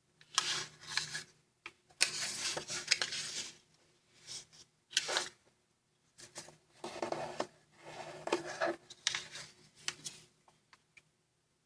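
Origami paper being folded and creased by hand: crinkling and rustling with sharp crackles as the folds are pressed. It comes in a run of short spells with brief pauses between them.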